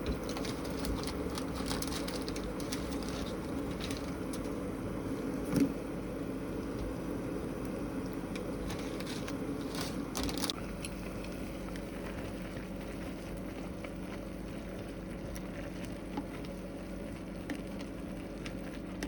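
Food sizzling in a frying pan on the stove, with a steady hum under it and a few sharp clicks of utensils, the loudest about five seconds in.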